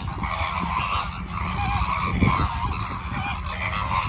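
A flock of greater flamingos calling: many overlapping goose-like honks and chatter, over a steady low rumble.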